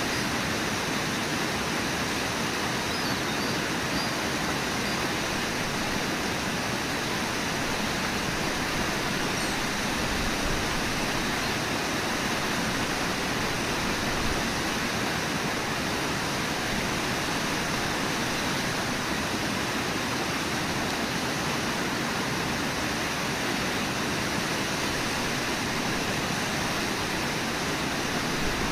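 Steady rushing of a river pouring over a low waterfall and through whitewater rapids.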